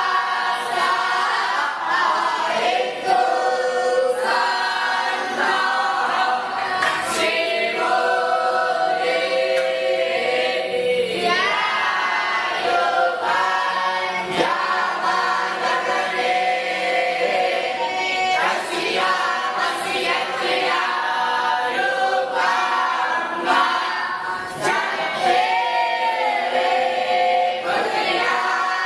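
A group of voices singing together in long held notes, with a few sharp knocks through it.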